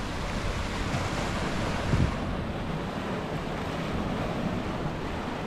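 Sea surf washing against a rocky shoreline, with wind buffeting the microphone, and a single low thump about two seconds in.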